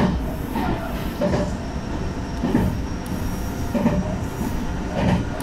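Train running at speed, heard from inside the front car: a steady low running noise with the wheels knocking over rail joints about every 1.3 seconds.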